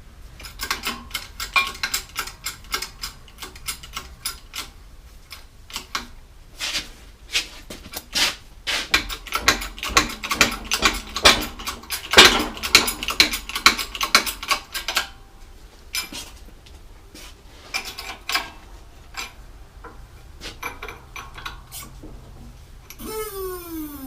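Steel axle parts and hand tools clinking and knocking against each other in quick, irregular strikes that ring briefly, densest in the middle, during work on a differential's carrier bearings and shims. A short falling squeal of metal near the end.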